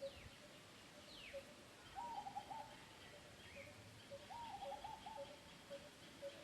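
Faint birdsong. Two quick descending whistles come first, then two short runs of hooting notes, over a low note repeated again and again and a faint high steady trill.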